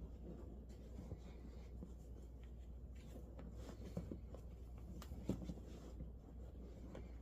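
Faint scratching and rustling of hands working a heated-seat pad up under a seat's upholstery cover, with a couple of sharper clicks about four and five seconds in.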